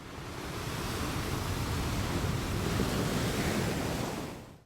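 Steady rushing noise that swells in over about the first second and fades out near the end.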